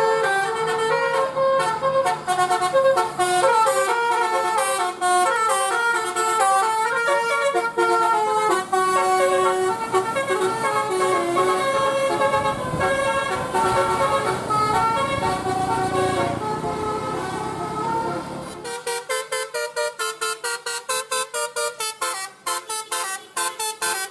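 Telolet bus horn (a basuri-type multi-tone horn) playing a stepped melody of notes. About 18 seconds in it switches to a fast run of short, choppy toots.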